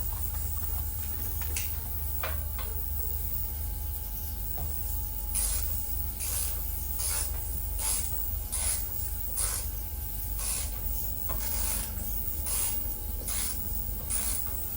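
Ratchet wrench clicking in a run of back-and-forth strokes, about two a second, starting about five seconds in, as a bolt is worked loose. A steady low hum runs underneath.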